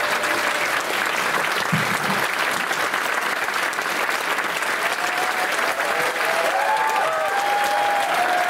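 Audience applauding: a dense, steady patter of many hands clapping in a theatre.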